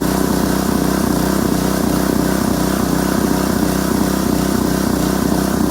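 Kohler Courage XT7 173 cc single-cylinder engine on a Husky pressure washer running steadily at speed with an even pulse, now running on its repaired carburetor; near the very end its pitch starts to drop.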